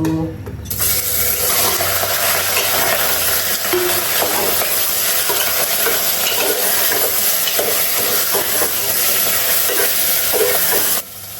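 Pieces of goat meat sizzling as they fry in hot oil in a pan, with the small knocks and scrapes of stirring. The sizzle starts suddenly under a second in and cuts off suddenly near the end.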